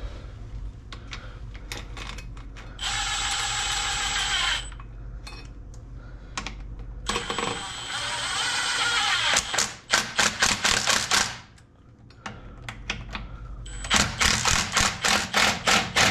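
A power drill runs in two bursts of about two seconds each, with a steady high whine. Each burst is followed by a run of quick ratcheting clicks, about five or six a second, as bolts are worked on the transmission mount.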